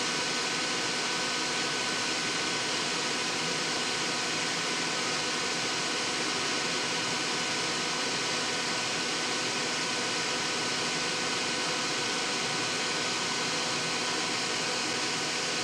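Solder fume extractor fan running with a steady hiss and a faint steady whine, a little on the loud side.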